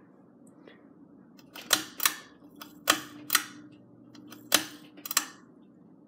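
Ceiling fan pull-chain speed switch clicking as the chain is pulled to change the fan to medium: six sharp clicks in three pairs, over a faint motor hum that shifts as the speed changes.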